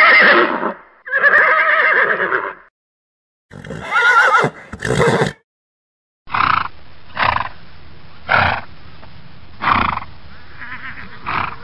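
Horse whinnying: two long, wavering whinnies and a third broken in two. After a short pause, a run of five short, sharp sounds about a second apart over a steady hiss.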